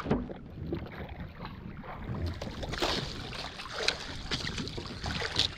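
Sea water sloshing and splashing against a small outrigger boat's hull and floats, with wind on the microphone and a few louder splashes along the way.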